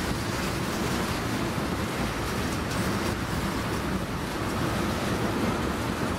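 Train rolling past: a steady rumble and rush of wheels on the rails.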